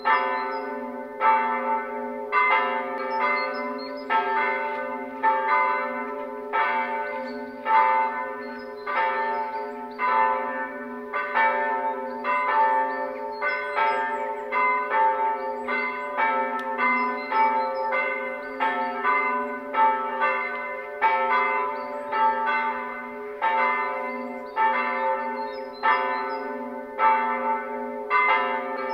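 Naantali church bells pealing: several bells of different pitch struck one after another about every half second to second, their tones overlapping over a continuous low hum. This is the ringing that calls people to the service before it begins.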